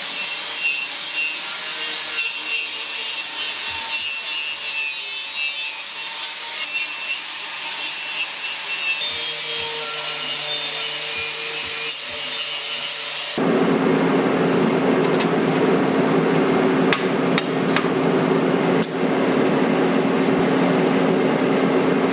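Power tools working steel: a hissing abrasive grind for about the first thirteen seconds, then a sudden switch to a louder, lower-pitched tool run with a few sharp ticks.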